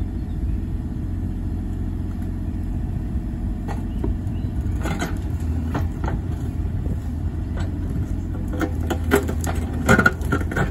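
Bobcat E35 mini excavator's diesel engine running steadily. From about four seconds in, sharp knocks and cracks come as the bucket and thumb dig into the sticks and debris of a beaver dam, with a cluster of louder knocks near the end.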